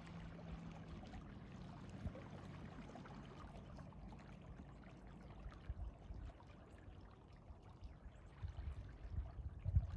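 Water lapping and trickling from a small kayak's wake as it moves under a trolling motor. Irregular low rumbling bumps come in near the end.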